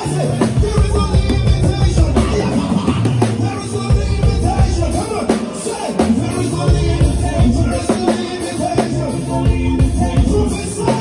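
A live band playing an upbeat groove with a heavy bass line and drum kit, recorded on a phone.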